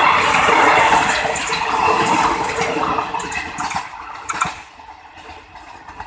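Passenger train rolling in and slowing: a loud rushing hiss with scattered clicks of wheels over the rails, dying away about four seconds in.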